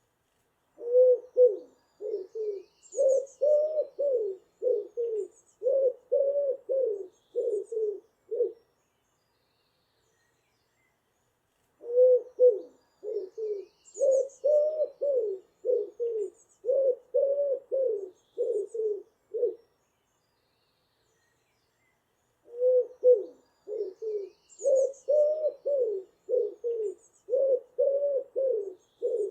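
A pigeon cooing in three long runs of about ten low coos each, with a few seconds' pause between runs. Faint high chirps from a small bird come through during the runs.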